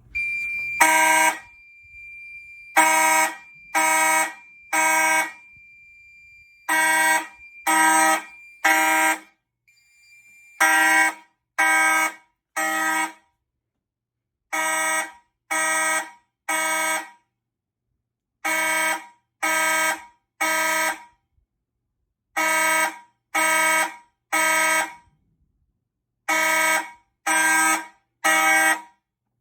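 Fire alarm horns (a Federal Signal 450D and a Simplex 4903-9215) sounding in temporal-three code, signalling a pull-station alarm. Three buzzy blasts about a second apart, then a pause, repeating every four seconds or so. A thin steady high beep runs under the first nine seconds or so.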